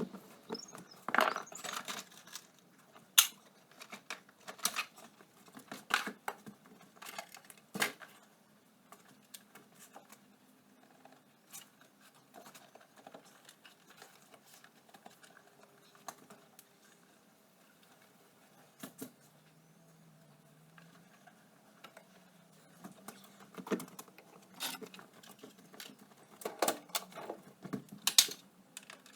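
Irregular metallic clicks and clinks of hand tools and loose parts while a Suzuki LT80 ATV is taken apart, busiest near the start and again near the end.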